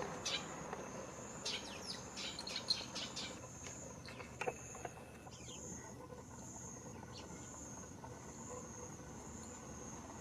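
Insects singing, a steady high trill that pulses evenly, with quick bird chirps in the first half.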